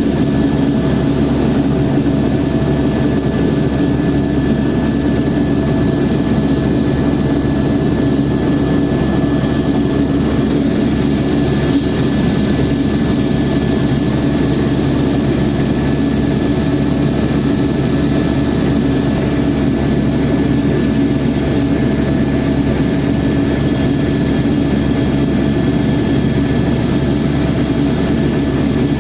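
Helicopter engine and rotor noise in flight, loud and steady, with a few thin whining tones held over a low drone.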